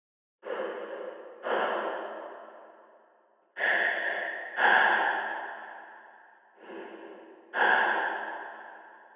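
Artificial breathing made with Pro Tools stock plugins, filtered vocal sounds fed into a reverb whose decay is automated. Three slow breaths, about one every three seconds: each is a short in-breath and then a louder out-breath that fades away.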